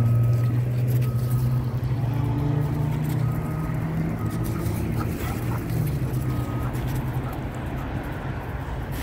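A motor vehicle engine running with a steady low drone that shifts slightly in pitch about six seconds in. A few short high tones sound here and there.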